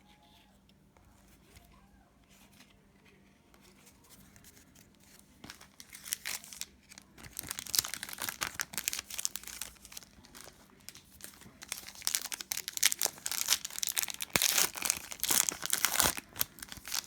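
Foil wrapper of an Upper Deck hockey card pack being torn open and crinkled. It comes as irregular bursts of crackling that start about five seconds in after a quiet stretch and carry on for about ten seconds.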